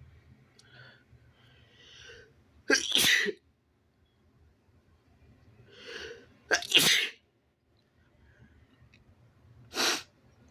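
A person sneezing three times, brought on by tickling the inside of the nose with paper tissue. Short in-breaths build up before the first two loud sneezes, and a shorter third sneeze comes near the end.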